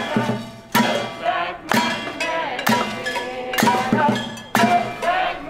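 Crowd singing a song together, kept in time by sharp strikes on pots and pan lids about once a second.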